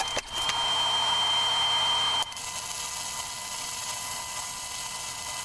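Welding of small steel tabs onto a steel plate: a steady hiss with a faint whine, dropping in level a little over two seconds in.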